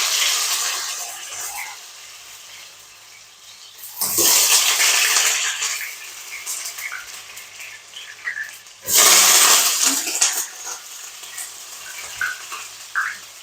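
Bammy (cassava flatbread) frying in hot oil in a frying pan: a steady sizzle that flares up loudly twice, about four and nine seconds in.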